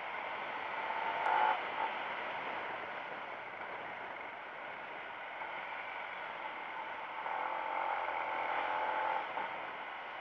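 Motorcycle running at road speed, its engine mixed with steady wind and road noise on the onboard microphone, with a brief louder rise about a second and a half in.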